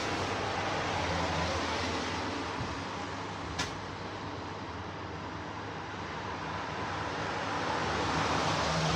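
Rotisserie chicken oven running: a steady whirring noise with a faint low hum, and one sharp click about three and a half seconds in.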